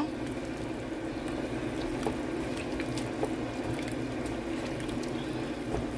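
Elbow macaroni simmering in milk in a pan, bubbling steadily while a wooden spoon stirs through it, with a few light taps of the spoon on the pan. A steady low hum runs underneath.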